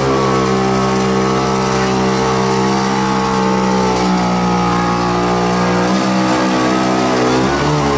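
Engine of a homemade small tractor running steadily under load as it drives through mud; the engine note sags about six seconds in and picks back up near the end.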